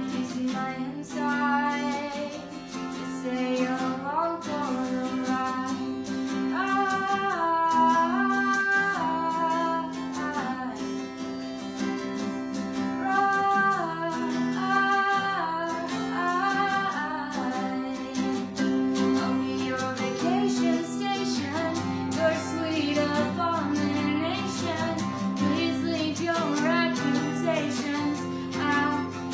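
A woman singing a song to guitar accompaniment, the sung melody moving over held chords.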